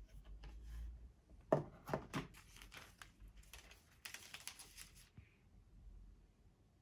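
Light handling noise: a few sharp clicks about a second and a half in, then a short patch of quick clicks and rustling around four seconds in.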